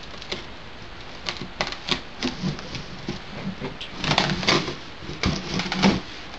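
A long cardboard box being opened by hand: the tape along its top seam is torn and the flaps are pried apart. It makes a run of irregular scrapes and crackles that grows busier and louder about four seconds in, as the flaps come up.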